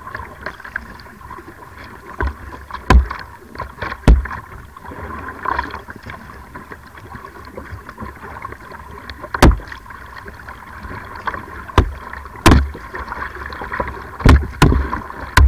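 Kayak being paddled across a lake, heard from its bow: a steady wash of water sloshing against the plastic hull, broken by about nine irregular sharp knocks and slaps as the paddle strokes and the water hit the boat.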